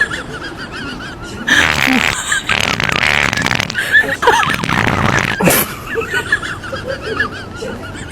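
A long, noisy fart sound starting about one and a half seconds in and lasting about four seconds, in three spluttering stretches.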